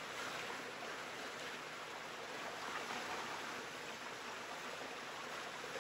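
Steady sizzling of thin-sliced marinated beef searing on a hot, seasoned griddle over a wood fire.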